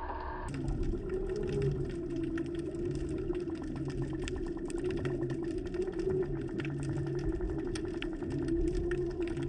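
Steady motor hum with a fast, even ticking, heard underwater, like a boat's engine and propeller carrying through the water.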